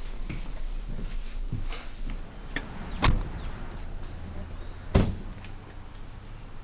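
A door being handled: a few faint clicks, then two heavy thuds about two seconds apart, the second the loudest.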